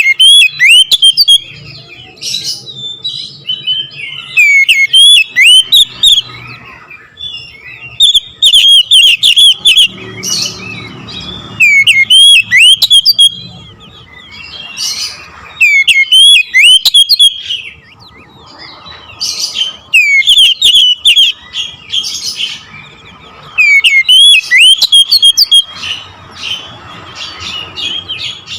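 Oriental magpie-robin (kacer) singing loud bursts of rapid, sharply sweeping whistled notes, a new burst about every four seconds, with softer twittering between the bursts.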